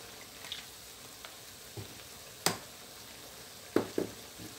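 Chicken giblet stir-fry sizzling in a wok, a steady frying hiss. A few sharp knocks come through it, the loudest about two and a half and four seconds in.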